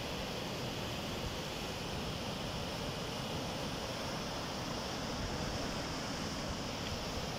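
Steady rushing of a muddy river in full flood, churning fast around the piers of a concrete bridge.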